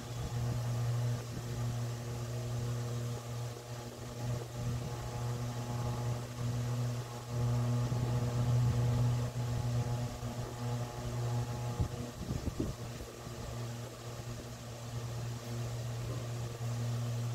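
Steady low mechanical hum with several fainter overtones above it, unchanging throughout.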